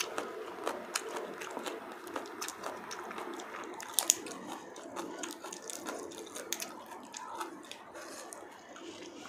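Cooked buttered shrimp being peeled by hand: the shell cracks and crinkles with many small wet, sticky clicks. One sharper crack comes about four seconds in.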